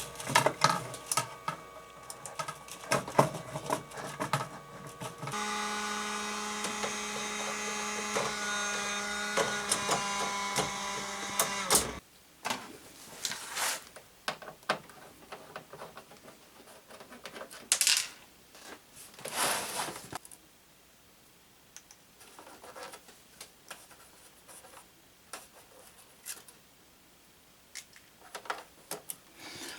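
FlashForge Adventurer 3 3D printer: clicks for the first few seconds, then a steady motor whine over the fan hum as it runs a filament feed. The whine and the hum cut off together about twelve seconds in, as the printer is switched off. After that come scattered quiet clicks and knocks of handling the machine.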